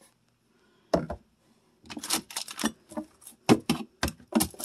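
Bottles and jars being handled in a refrigerator door shelf: one knock about a second in, then an irregular run of sharp clicks and clatters as containers are picked up and set down.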